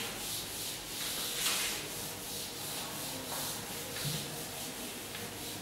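Chalkboard being wiped clean with a blackboard duster: repeated back-and-forth rubbing strokes of the eraser across the board, erasing chalk writing.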